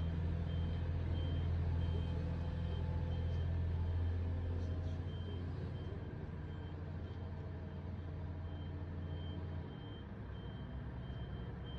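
Reversing alarm on demolition plant beeping at an even pace, about one and a half beeps a second, over the steady low drone of a heavy engine running, which drops away near the end.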